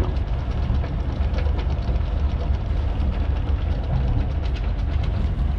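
Sailing yacht's inboard diesel engine running slowly ahead in gear with a steady low hum and faint rapid ticking above it, easing the boat forward at about a knot to keep the anchor chain slack while the anchor is raised.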